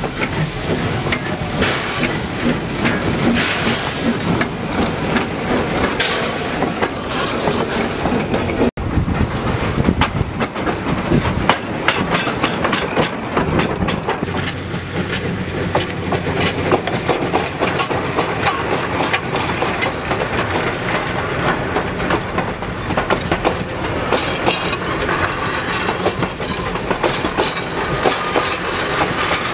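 A steam-hauled train of old passenger carriages rolling past close by, its wheels clicking over the rail joints. The sound breaks off suddenly and briefly about nine seconds in.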